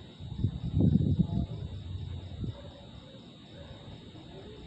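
Steady high-pitched chirring of night insects, with a short, loud low rumble about half a second in that fades within about a second.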